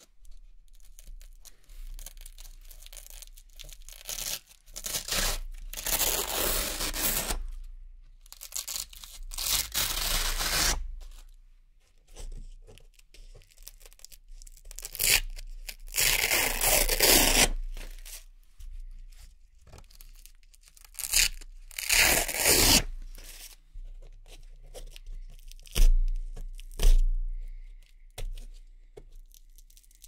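Red hook-and-loop (Velcro) discs being peeled off a Velcro board by hand: a series of ripping tears, some drawn out over a second or two, others short and quick. Two sharp thumps near the end.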